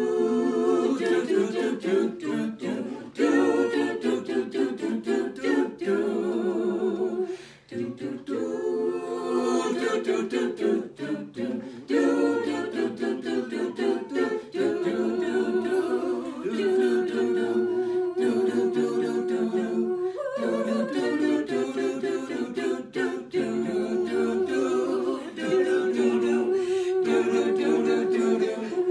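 A small group of voices singing a hymn unaccompanied as the service's introit, with several notes held long.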